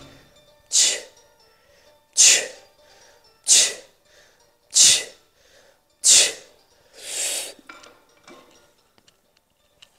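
A weightlifter's sharp, forceful exhales, six in a steady rhythm about one every second and a quarter, one with each deadlift rep. The fifth-to-last breath, near the end, is longer and softer.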